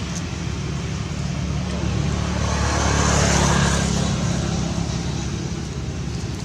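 Road traffic: a steady low engine rumble, with a louder noisy swell about halfway through like a vehicle passing by.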